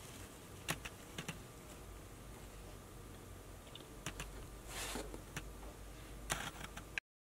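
Quiet handling noise of a hand moving in a tissue-lined cardboard box: scattered light clicks and a short rustle of paper about five seconds in, over a faint steady hum. The sound cuts off suddenly near the end.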